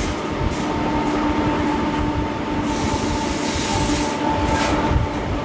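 Vintage passenger train rolling along the track, heard from an open carriage window: steady wheel-and-rail rumble with a steady tone running through it, and a couple of knocks from the track.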